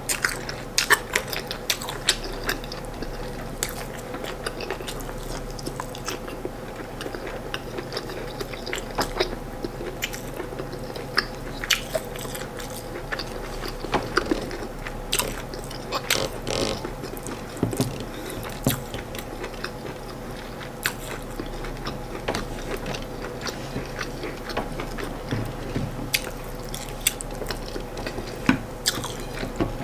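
Close-miked eating of corn fufu and chicken stew by hand: chewing with many irregular sharp mouth clicks and smacks, over a steady low hum.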